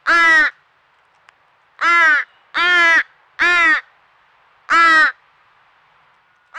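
American crow fledgling begging: five loud, drawn-out caws, each about half a second long and sliding slightly down in pitch, in an uneven series.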